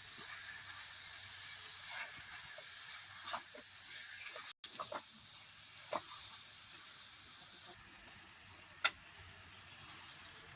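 Masala with water sizzling in a kadai as it is stirred, with a spoon clicking against the pan a few times.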